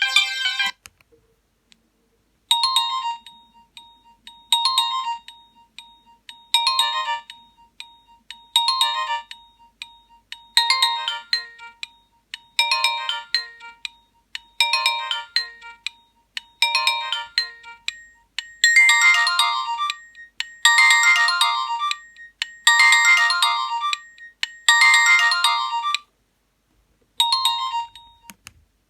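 Nokia 1280 mobile phone ringtone: a short melodic phrase of electronic notes repeated about every two seconds, turning fuller and louder about two-thirds of the way through, then stopping with one last short phrase.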